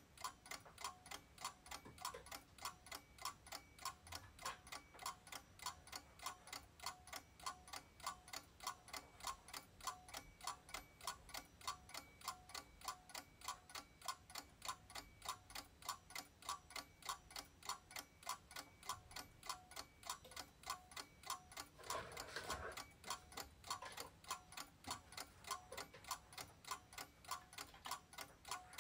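A clock ticking steadily and faintly, about two ticks a second. Once, late on, a short swish is heard.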